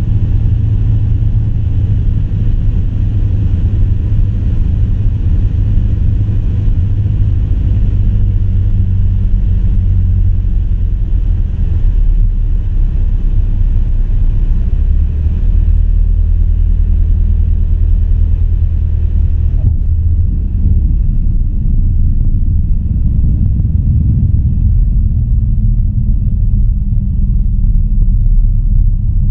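Piper Archer's four-cylinder engine and propeller droning in the cabin on final approach. The engine note steps lower a couple of times as power comes back, and about two-thirds of the way through the higher hiss above the drone cuts off suddenly.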